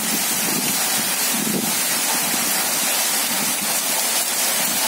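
Steady rain falling, a dense even hiss with no break.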